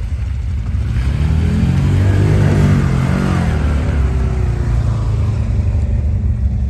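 ATV engine revving: its pitch climbs, peaks about two and a half seconds in, then drops back to a lower steady run.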